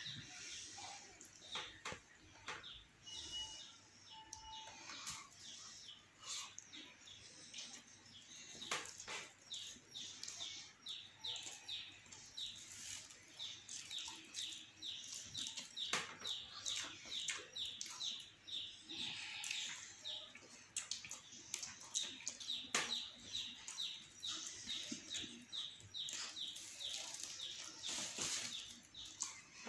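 Eating sounds: rice being mixed and squeezed by hand on china plates, and chewing, with many short smacking clicks, about two or three a second in the second half.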